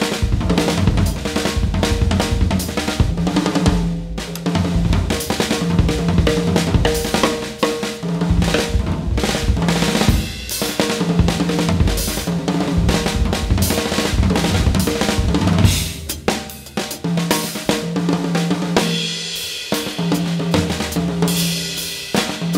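Drum kit played with sticks in a fast, busy passage: snare, toms and bass drum with cymbal and hi-hat strikes. A low held note comes and goes underneath.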